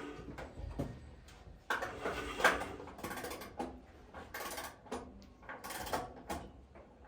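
Ratchet and torque wrench clicking, with irregular metallic clicks and clatter, as a bolt on the sawmill's clutch assembly is tightened to torque.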